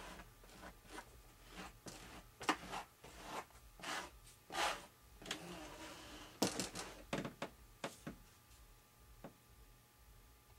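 Irregular rubbing and scraping strokes as epoxy is spread by hand over fibre tape on a foam RC wing, with a few short clicks and handling knocks.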